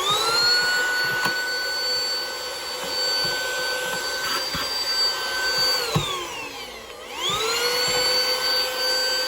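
Small handheld electric cleaner's motor spinning up to a steady high whine, being used to clean out a sewing machine. It winds down about six seconds in, then is switched on again a second later and spins back up to the same whine.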